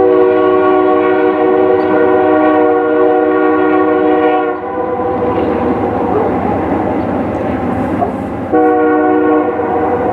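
Nathan Airchime locomotive air horn sounding several notes at once: a long blast of about four and a half seconds, then a short blast near the end. A steady rumble from the train runs underneath.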